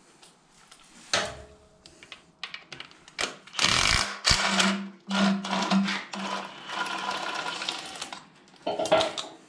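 Makita cordless impact wrench on a long socket extension hammering bolts loose from an engine bracket, in two short bursts and then a run of about three seconds. A clank of metal about a second in and another near the end.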